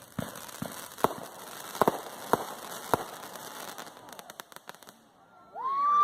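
Fireworks going off: irregular sharp pops and crackles, with several louder bangs in the first three seconds that then thin out. Near the end people's voices rise, shouting and cheering.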